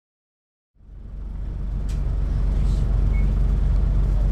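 1993 MAN NL 202 city bus's diesel engine running steadily with a deep drone, fading in about a second in.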